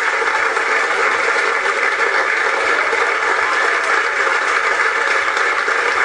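Concert audience cheering and applauding, a dense, steady crowd noise.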